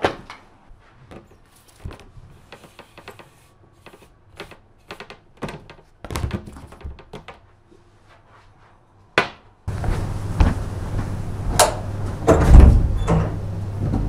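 Light knocks and clicks of objects being handled on a hard table, then from about ten seconds in a steady rushing noise with a low hum, broken by several thuds.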